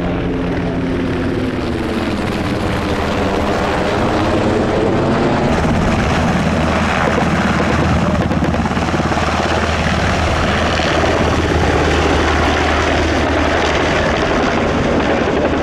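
Sikorsky UH-60M Black Hawk helicopter running close by: a dense, rapid rotor beat, growing louder about five seconds in.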